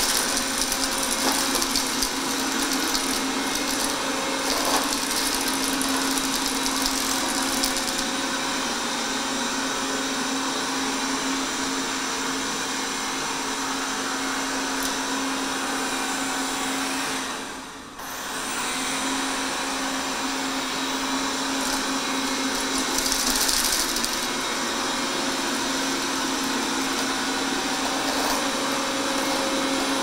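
Xiaomi Mi Robot Vacuum Mop Pro robot vacuum running, its suction fan and brushes making a steady whirring noise with a constant hum as it sweeps up cereal flakes. The noise dips briefly about two-thirds of the way through, then resumes.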